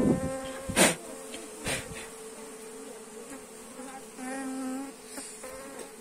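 Honeybees buzzing steadily around their opened nest, with a louder, lower buzz about four seconds in. A few sharp knocks come in the first two seconds.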